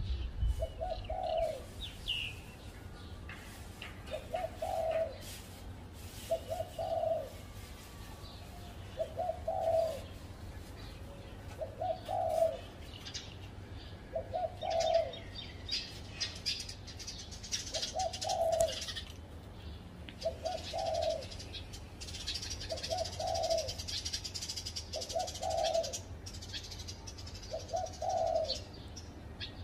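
Spotted dove cooing, a short low coo repeated about every two and a half seconds, with other small birds twittering higher up, mostly in the second half.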